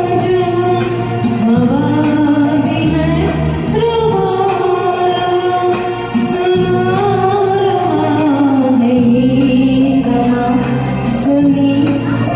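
A woman singing a Hindi film song over a karaoke backing track, with long held notes that glide between pitches.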